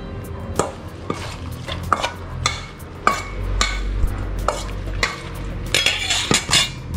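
Salad greens tossed with a metal spoon in a stainless-steel mixing bowl: irregular clinks and scrapes of the spoon against the bowl, several a second.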